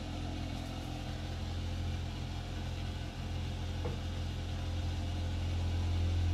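A steady low mechanical hum that grows somewhat louder toward the end.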